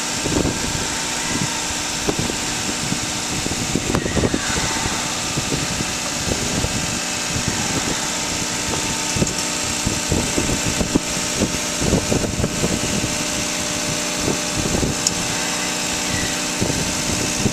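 An engine idling steadily, a constant hum with several held tones.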